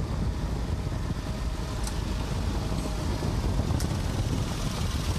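A vehicle engine running loudly with a steady low rumble.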